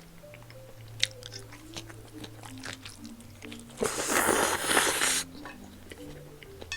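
A person eating up close, with chewing and wet mouth clicks over soft background music. About four seconds in comes a loud, noisy rush lasting over a second.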